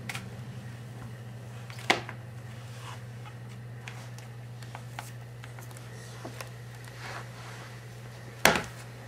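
A toddler handling a large cardboard board book on the floor: two sharp slaps, one about two seconds in and a louder one near the end, with a few light taps between, over a steady low hum.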